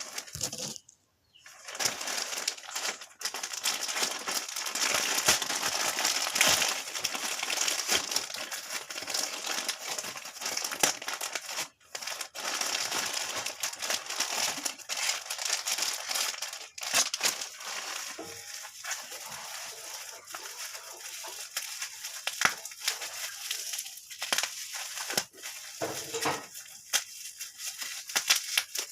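Packaging being handled and opened: crinkling and rustling of plastic or paper wrapping, with many sharp crackles and clicks. The crinkling is dense for the first half and becomes sparser and more broken later.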